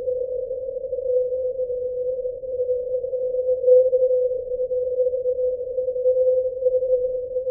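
A steady electronic hum held at one mid pitch, its loudness wavering slightly.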